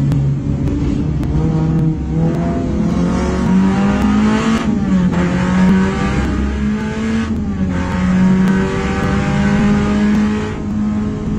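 Toyota 3SZ-VE 1.5-litre four-cylinder engine in a Daihatsu Gino race car, heard from inside the cabin, pulling hard out of a corner after lifting off. The engine note climbs, drops at upshifts about four and a half and seven and a half seconds in, and climbs again toward the top of the rev range.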